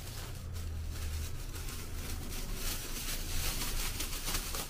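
Thin plastic disposable gloves crinkling and rustling in irregular crackles as they are pulled off and handled, over a low steady hum.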